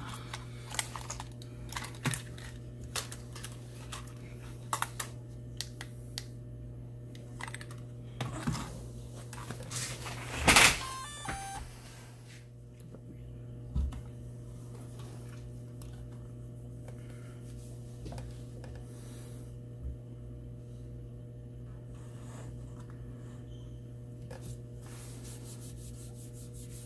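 Scattered clicks and taps of a DJI Mini drone and its controller being handled on a desk, with a louder knock about ten seconds in followed by a brief falling series of tones, over a steady low hum.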